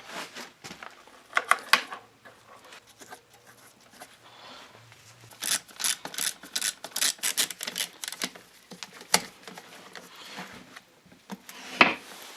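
Clicks, rattles and rubbing of hand tools and small parts being handled while a carburetor is fitted and bolted onto a Honda Dio scooter engine, with a dense run of clicks in the middle and a sharp knock near the end.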